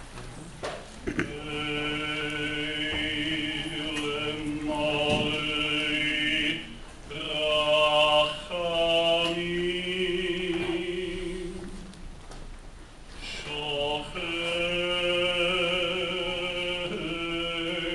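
Slow, chant-like singing in a low voice, holding long drawn-out notes. It breaks off about twelve seconds in, then resumes.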